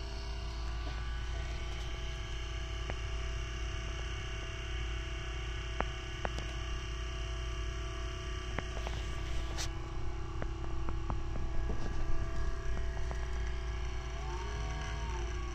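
Small DC motor of a homemade pool cue lathe running steadily, spinning a cue shaft in a bearing-roller support, with a hum and scattered light clicks. Near the end its pitch shifts briefly as the speed-controller knob is turned.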